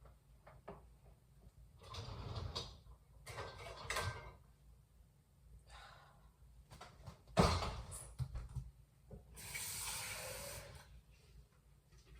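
Household handling noises: scraping and rustling, a sharp knock about seven seconds in, then a brief rush like running water near the end.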